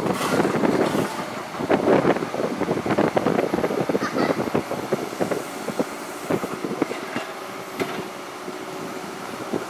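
Liebherr crawler excavators working brick demolition rubble: bricks and debris clatter and knock as the buckets dig and drop them, over the machines' running. The clatter is heaviest in the first couple of seconds, then thins to scattered knocks.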